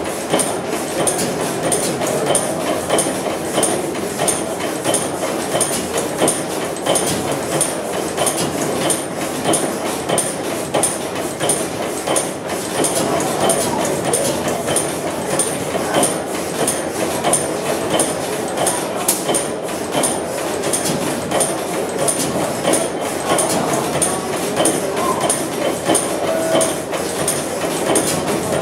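Deutz horizontal stationary gas engine with crosshead running steadily: an even, rhythmic mechanical clatter with regular light ticks.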